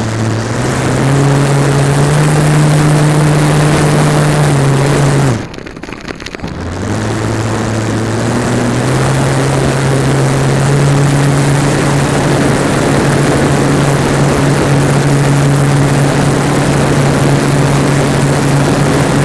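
Small electric outrunner motor and propeller of a foam RC airplane running steadily at close range, a pitched hum over a rushing hiss. About five seconds in it is throttled back for a moment, then spools up again and holds steady.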